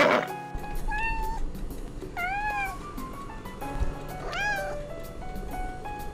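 Kitten meowing three times: short, high, arching calls spaced about one and a half seconds apart, over background music.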